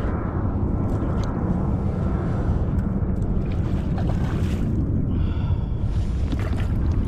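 Steady wind rumbling on the microphone over open water, with water sloshing around a kayak.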